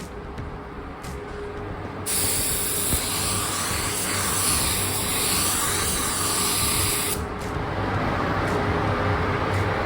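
Paint being sprayed: a steady hiss that starts abruptly about two seconds in, lasts about five seconds and cuts off suddenly, over a low steady hum.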